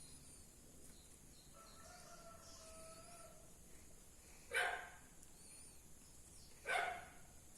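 A dog barking twice, about two seconds apart, over faint high bird or insect chirps.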